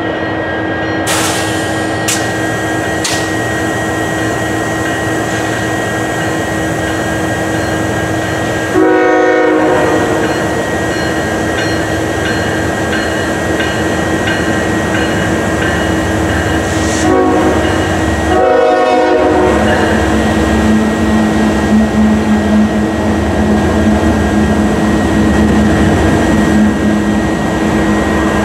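CSX freight train led by GE diesel locomotives approaching and rolling past with a long string of tank cars, a steady rumble of engines and wheels. Its air horn sounds a blast about a third of the way in, then a short blast and a longer one about two-thirds in.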